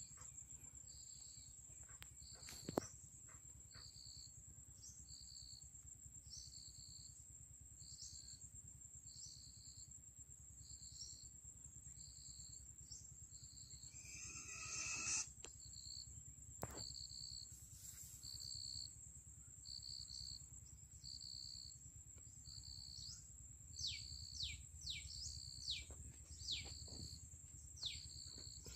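Outdoor insect and bird sounds: a steady high-pitched insect drone with a short chirp repeating a little more than once a second. Several short falling calls come near the end.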